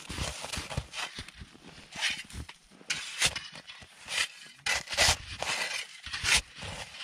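Snow shovel scraping and cutting snow from the ceiling and walls of a snow cave, in a string of irregular strokes of uneven loudness.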